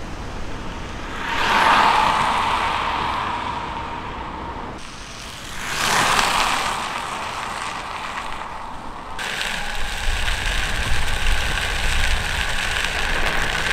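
Electric skateboard on 3D-printed TPU wheels rolling past twice, its wheel noise and motor whine swelling and fading each time. Then a steady rolling rumble with a constant whine as the board is ridden.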